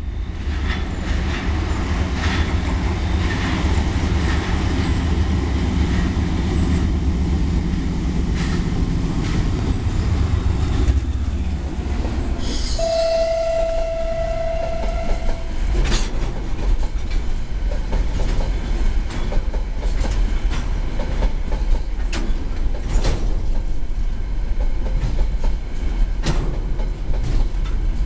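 A freight train passes close by. The CRRC CDD6A1 diesel-electric locomotive's engine runs loudly past in the first ten seconds or so. About twelve seconds in, a steady high-pitched tone sounds for about three seconds. After that the container wagons roll past with their wheels clacking over the rail joints.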